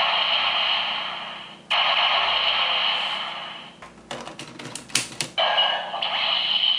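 Electronic sentai toy playing hissing sound effects through its small speaker while reading a Beast Battery. A rapid run of sharp clicks sits in the middle, about four to five seconds in, before the hissing effect returns.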